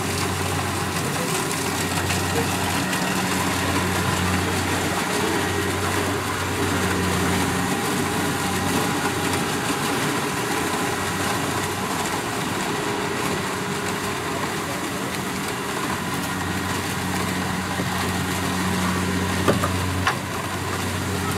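Kubota DC-70 Plus rice combine harvester running steadily as it works through the paddy, a continuous engine drone over a dense mechanical rush. Two brief sharp knocks come near the end.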